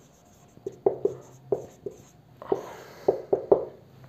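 Marker pen writing on a whiteboard: a quick series of short strokes and taps, with a couple of longer scratchy drags.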